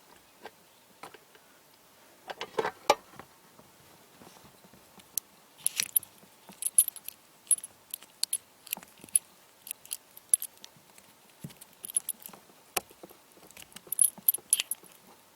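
Metal cable plugs and connectors being handled, giving irregular clicks, clinks and light jingling. A few duller knocks come about two to three seconds in, and bright metallic clinking clusters later on.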